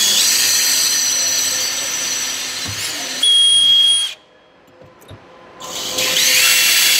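Cordless drill running under load, driving screws through aluminium gear track into the boat's deck. A long run, then a short higher-pitched burst, a pause of about a second and a half, then the drill runs again near the end.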